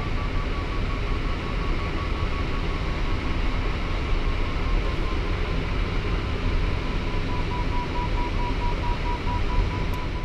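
Steady rush of airflow in a sailplane cockpit, with the audio variometer beeping in quick short tones whose pitch eases slightly lower over the seconds. An intermittent vario tone like this signals the glider is climbing in lift.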